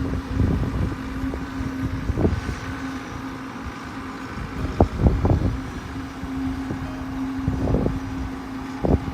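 An engine running at a steady pitch under low rumble, with several irregular knocks and thumps.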